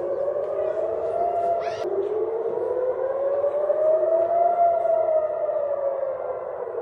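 Civil-defence air-raid sirens wailing, the pitch rising and falling in slow sweeps of several seconds. This is a missile alert warning of an incoming rocket.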